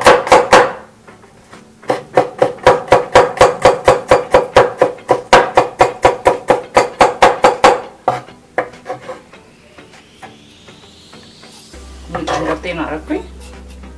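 Kitchen knife chopping a garlic clove on a wooden cutting board: quick, even knocks about four or five a second, stopping about eight seconds in, then a few scattered lighter taps.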